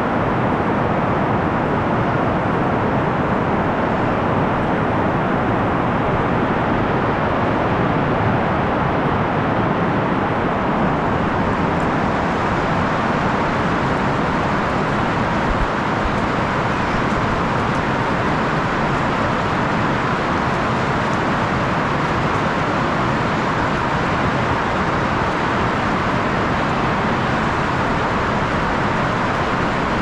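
Heavy rain falling steadily, a dense even hiss.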